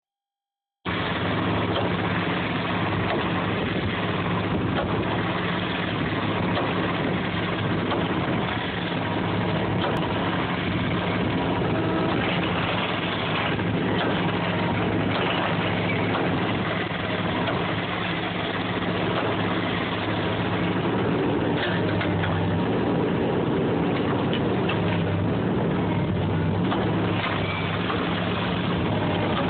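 SP-40 sonic side-grip pile hammer vibrating a steel pipe pile to extract it: a loud, steady mechanical drone that holds one pitch, starting about a second in.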